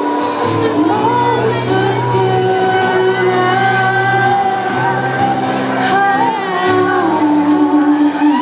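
Live trance music: a female vocalist sings long, gliding notes over sustained synth chords, recorded from within the crowd in a large, echoing hall.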